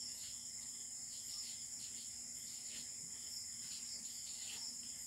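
A felt-tip marker writing on paper in short, faint strokes, over a steady high-pitched background drone.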